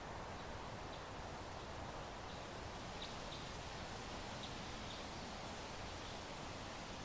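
Soft, steady wind hiss, with a few faint short high chirps scattered through the middle.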